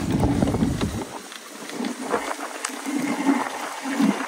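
Dog sled running downhill over snow. Wind rumbles on the microphone for about the first second, then gives way to a softer, uneven swishing.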